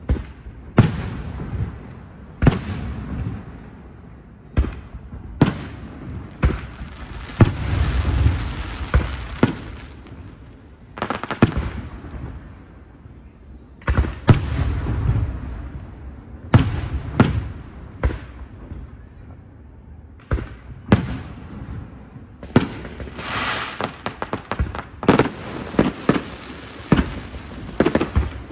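Aerial fireworks bursting: a long series of sharp bangs at irregular intervals, several trailing into a low rumble. Near the end comes a quick run of smaller bangs and crackles.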